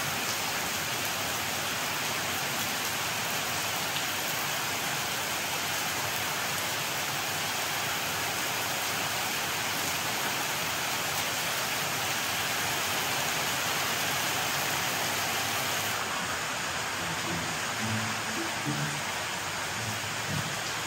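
Steady, even hiss of rain falling.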